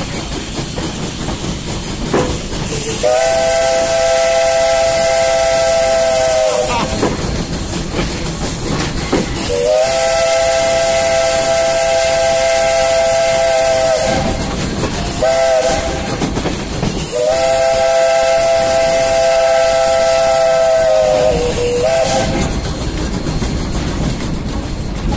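Steam locomotive's chime whistle sounding the grade-crossing signal: two long blasts, a short one and a final long one, each a chord of several notes, over the steady steam hiss and running noise of the moving train.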